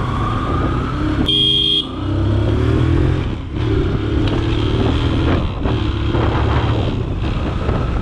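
TVS Apache RTR 180 motorcycle's single-cylinder engine pulling through the gears, its pitch rising and dropping several times as the rider shifts. A horn beeps once briefly about a second and a half in.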